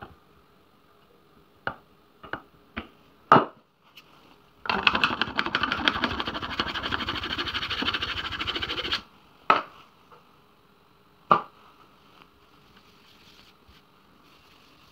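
A small pad rubbed rapidly back and forth over a filled scratch on a white furniture panel for about four seconds, smoothing the repair. Before and after it come a few light knocks and taps of tools being handled on the surface.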